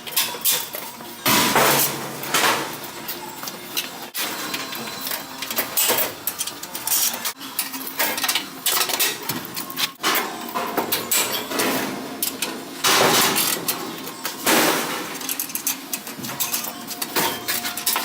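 Metal parts and hand tools being handled during the installation: irregular clanks and knocks in uneven bursts, with scraping in between.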